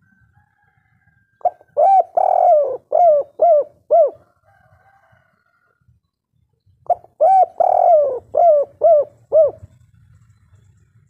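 Spotted dove singing its 'kuk 3' song twice: each phrase opens with a short coo and a longer drawn-out coo, then ends with three short 'kuk' coos.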